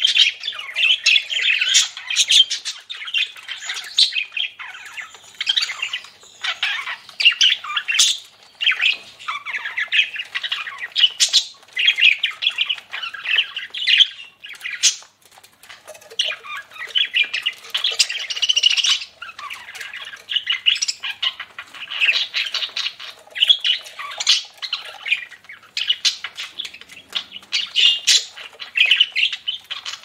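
A flock of budgerigars chattering and warbling without pause, a busy mix of rapid chirps, clicks and squawks, with a flutter of wings as a budgie flies.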